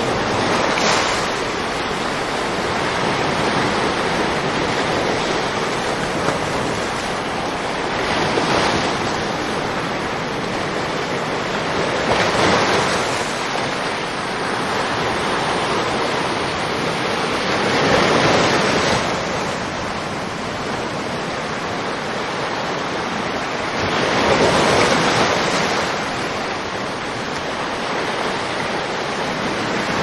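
Atlantic Ocean surf breaking on a sandy beach: a continuous wash of water that swells louder five times as waves break, a few seconds apart at uneven gaps.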